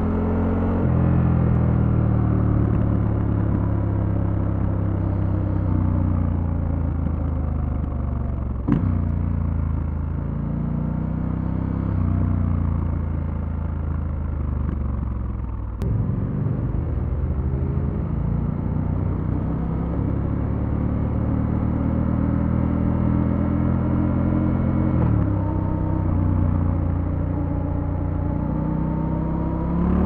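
Triumph Scrambler 1200 X's 1200 cc parallel-twin engine heard from on the bike while riding. Its pitch climbs and sags as the bike accelerates and slows, and drops suddenly a few times at gear changes. There are sharp clicks about nine and sixteen seconds in.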